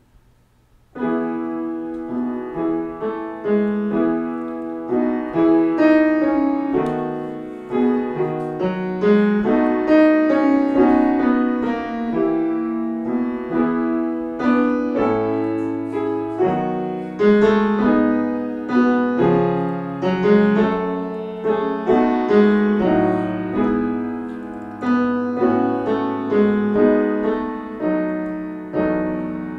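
Solo piano playing a gentle passage in E major in 6/8 time, with the melody in the tenor register. It starts about a second in, after a short pause.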